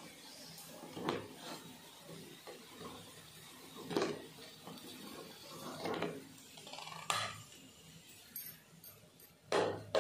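Spatula knocking and scraping against a frying pan and plate as deep-fried coconut fritters are lifted out of the oil: about five separate clacks a second or two apart.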